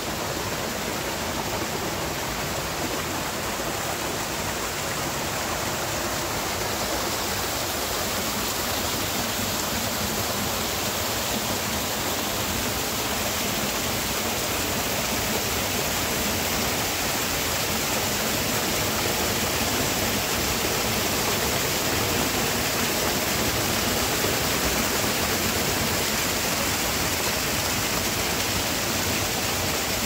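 Rainforest waterfall cascading down steep rocks: a steady rushing of water that grows slightly louder toward the end.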